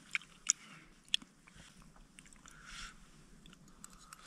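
A person eating hot instant noodles: quiet chewing with a few sharp clicks in the first second or so.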